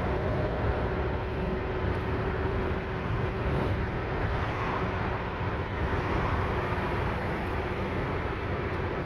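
Steady road and engine noise inside a moving car's cabin: a continuous low rumble with a faint steady hum.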